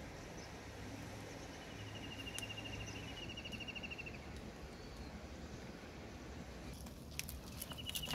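Quiet outdoor background hiss with a rapid, high-pitched pulsed trill lasting about a second and a half, heard twice, and a few light clicks near the end.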